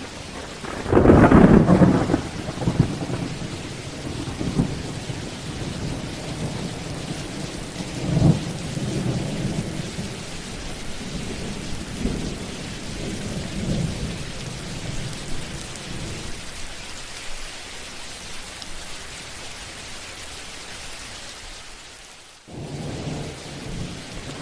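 Thunderstorm: steady rain falling with thunder, a loud clap about a second in followed by weaker rolling rumbles. The rain hiss drops away briefly near the end and comes back.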